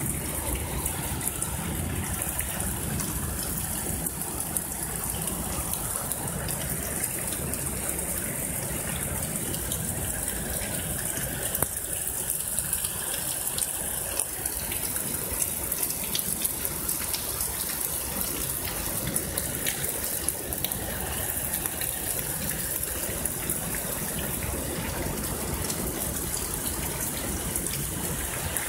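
Heavy thunderstorm downpour: steady rain pouring, with water gushing and running off on the flooded street, and scattered sharp ticks of drops striking close by.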